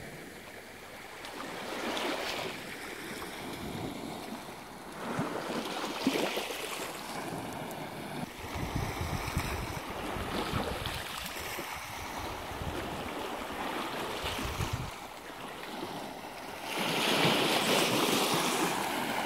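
Small sea waves washing onto a stony shore, swelling and falling back every few seconds and loudest near the end, with wind buffeting the microphone in the middle.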